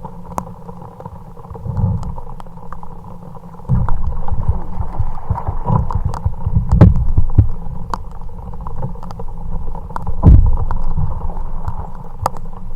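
Low rumbling noise on the microphone aboard a fishing kayak, with heavy thumps about four, seven and ten seconds in, a faint steady hum and scattered light ticks.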